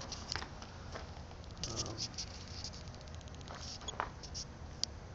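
Scattered light clicks and taps of small hardware being handled, with a sharper tick near the end.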